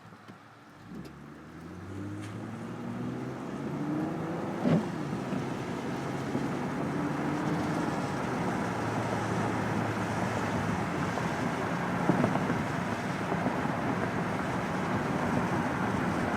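Car engine coming in about a second in, rising in pitch and growing louder over the first few seconds, with a sharp knock about five seconds in, then running on as a steady, dense noise.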